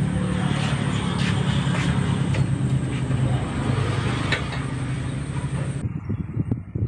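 A steady low engine hum with a few faint clicks. About six seconds in it gives way to irregular muffled low thumps.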